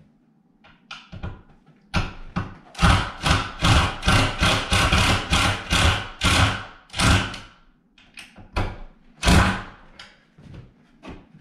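Cordless impact driver driving a screw through a wooden board into a wall stud, in a run of short bursts, followed by a few more bursts and knocks near the end.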